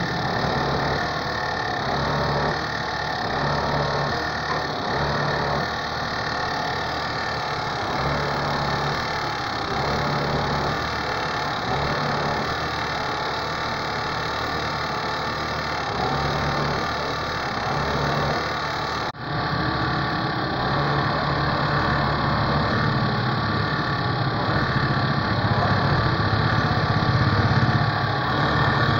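Overlock (serger) sewing machine running steadily while fabric is fed through to stitch a picot edge. The sound drops out for an instant about two-thirds of the way in, then carries on a little louder.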